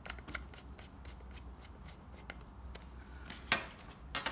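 Small Phillips screwdriver turning a tiny screw into a laptop's drive bracket: faint, irregular clicks and scrapes of the bit in the screw head, with two sharper clicks near the end.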